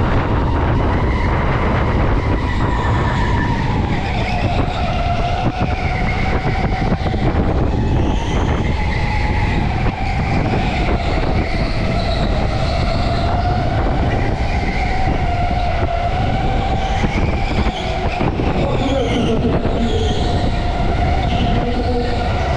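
Go-kart running on track, its motor giving a continuous whine that rises and falls in pitch with speed, over a steady low rumble.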